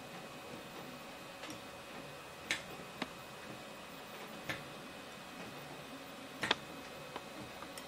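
3D printer at work: a steady hum with a handful of sharp, irregular clicks over it. The loudest clicks come about two and a half and six and a half seconds in.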